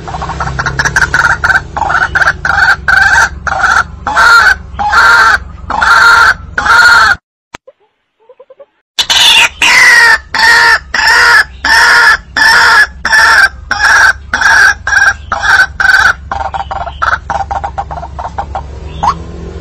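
White-breasted waterhen (ruak-ruak) calling loudly in a fast, even series of repeated harsh notes, played as a hunting lure call. The calls stop for about two seconds near the middle, then resume, over a steady low hum.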